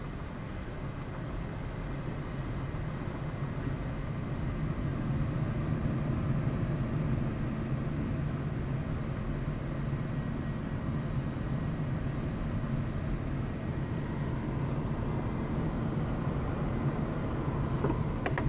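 Steady low drone of rushing air and jet engines inside the cockpit of a Gulfstream G550 on approach, growing a little louder over the first few seconds.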